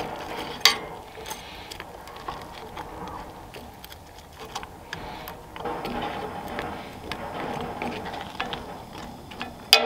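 A utensil clicking and scraping against a cast iron skillet as fried squirrel pieces are turned in simmering barbecue sauce, with a sharper knock about a second in and another near the end.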